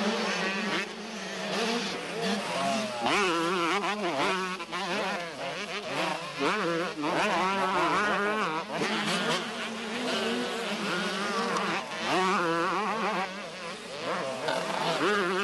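125cc two-stroke motocross motorcycle engines revving hard. Their pitch climbs and drops again and again as the throttle is worked through the corners, over a steady drone from other engines.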